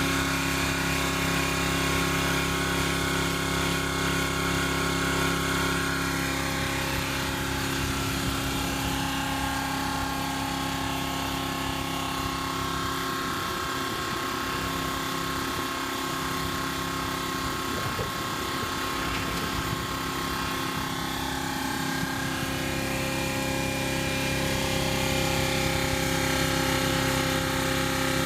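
Makita AC4000 air compressor running steadily, its motor and pump giving an even hum with several constant tones.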